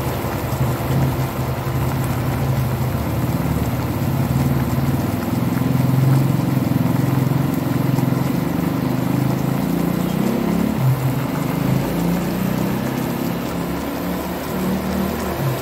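Water boiling hard in a frying pan around simmering sausages: a steady, low, rumbling bubbling.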